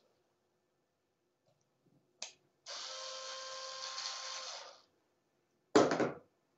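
A small power screwdriver whirs steadily for about two seconds, backing out bolts. Near the end comes a single loud clunk, a part or tool being set down on the bench.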